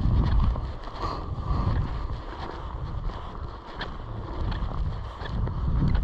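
Wind buffeting the microphone as an uneven low rumble, with scattered light clicks.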